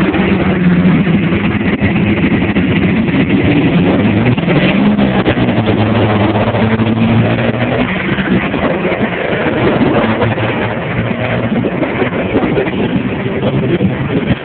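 Diesel pickup truck engines running close by, loud and steady, their pitch shifting up and down as they idle and rev.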